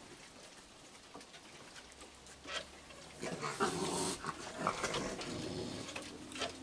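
Raccoons growling at each other while feeding, louder from about three seconds in, after a sharp knock or two.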